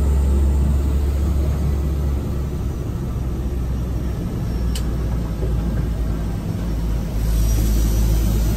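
Cabin noise inside a DHC-6-300 Twin Otter floatplane moving on the water: a steady low rumble from its turboprops and the floats. About seven seconds in, a rushing hiss of water spray from the floats rises over it.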